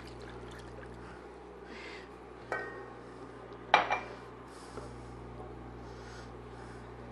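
Milk poured from a glass into a thick meat sauce in an enameled cast-iron pot, then a wooden spoon stirring it in, with two sharp knocks of the spoon against the pot, the second louder, about two and a half and four seconds in. A steady low hum runs underneath.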